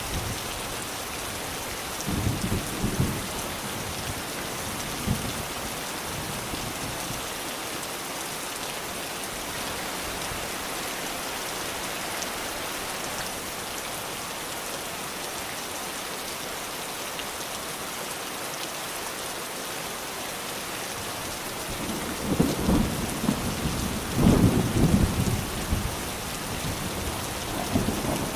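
Steady rain with rolling thunder: a short rumble about two seconds in, then a longer, louder roll of thunder near the end.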